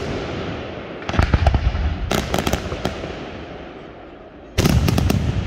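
Pirotecnia Benavente aerial firework shells bursting: a heavy bang with a quick cluster of crackling reports about a second in, a fading rumble, then another sudden loud bang near the end.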